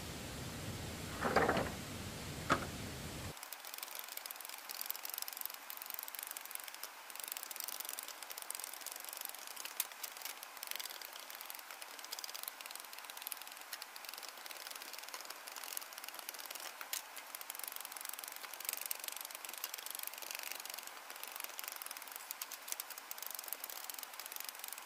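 Bamboo poles and split bamboo strips being handled and worked by hand: a few knocks in the first three seconds, then faint scattered clicks and taps over a steady hiss.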